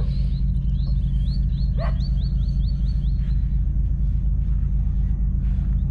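A bird calling a rapid series of short high chirps, about five a second, that stops about halfway through, over a steady low rumble.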